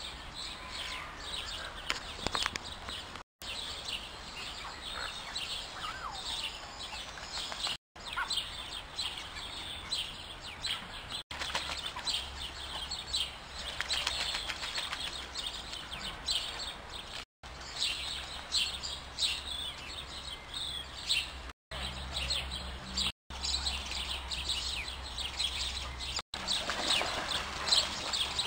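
A chorus of many birds chirping and calling, with dense short chirps throughout. It breaks off for an instant several times.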